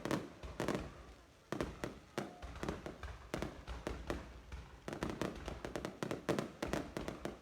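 Fireworks bursting, many sharp bangs in quick, irregular succession, each followed by a short echo.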